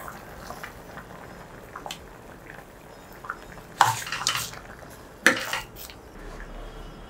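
Steel ladle knocking and scraping against a stainless steel pot as cooked toor dal is stirred into the sambar, over a low steady hiss. Scattered light clinks, with two louder clusters of clanks about four and five seconds in.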